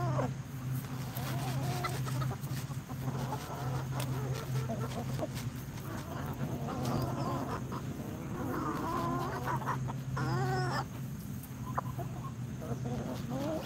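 A flock of hens clucking softly as they forage, with one louder call about ten seconds in. A steady low hum runs underneath.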